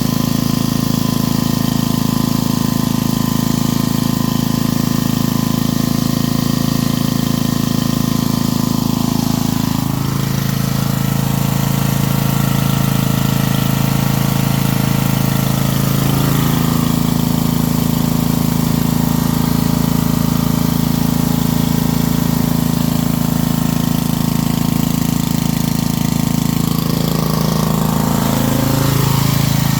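Coleman Powermate 4000 W generator's 8 horsepower engine running steadily. Its pitch drops about a third of the way in and comes back up about halfway through, then dips and recovers once more near the end.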